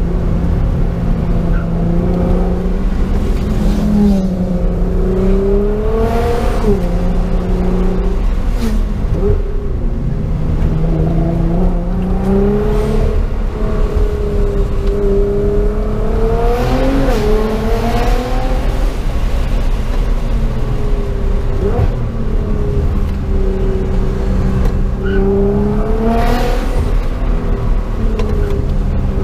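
Nissan GT-R's twin-turbo V6 heard from inside the cabin, driven hard through tight curves. The revs climb and drop back sharply again and again as it accelerates and shifts, loud throughout.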